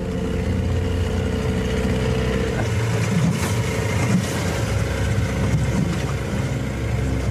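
Small boat's outboard motor running steadily under way.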